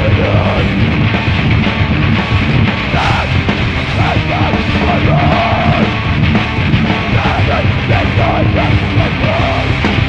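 Hardcore punk song: a loud, dense band with yelled vocals.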